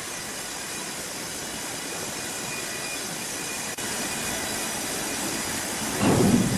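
Sawmill machinery running: a steady, dense mechanical rush with a faint high whine, briefly broken a little over halfway, and a louder low surge near the end.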